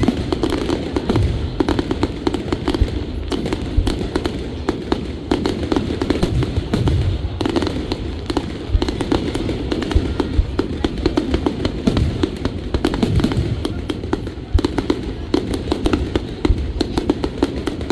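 Fireworks going off in quick succession: a dense run of crackles and sharp bangs over a low rumble.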